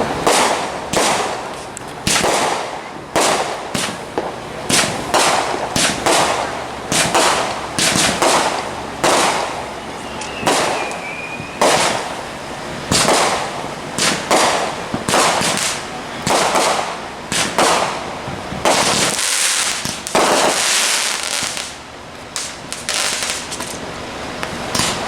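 Fireworks going off in a rapid, irregular string of sharp bangs, about one or two a second, with a couple of longer hissing bursts near the end.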